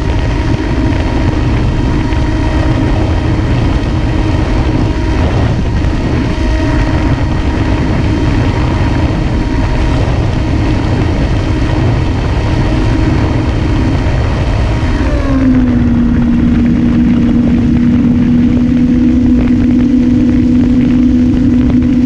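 Onboard sound of an electric-powered RC flying wing: the motor and propeller run with a steady whine under low wind rumble on the camera. About fifteen seconds in, the throttle is cut and the pitch falls away. A steady lower hum and airflow noise remain as the plane glides unpowered.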